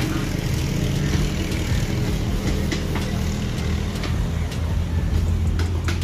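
Steady low motor rumble with a few light clicks.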